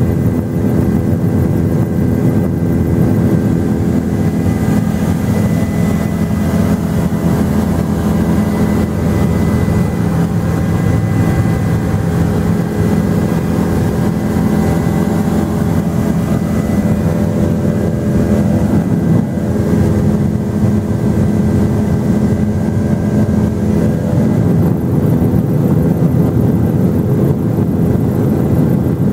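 A helicopter in flight heard from inside the cabin: steady engine and rotor noise with several constant tones held above it.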